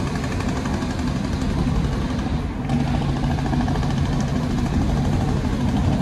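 Steady engine and road noise of a moving car, heard from inside the car.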